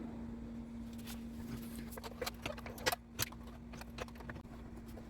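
Scattered metallic clicks and clinks of a socket and long extension working the top engine mount bolts loose, a few of them sharper knocks. A steady low hum sits underneath.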